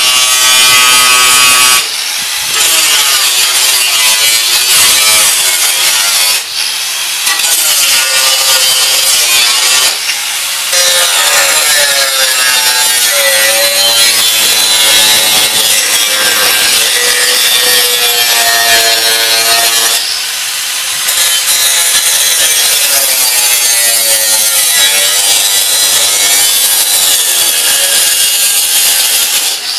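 Angle grinder cutting through the rusted steel of a Craftsman mower deck: a loud, harsh grinding hiss, the motor's whine sagging and rising as the disc bites and eases, with a few brief let-ups.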